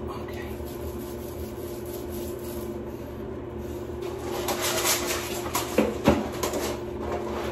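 Small seam roller pressed and rolled along a seam of glass-bead vinyl wallcovering, a scratchy rubbing that grows louder in the second half, with a couple of sharp knocks about six seconds in.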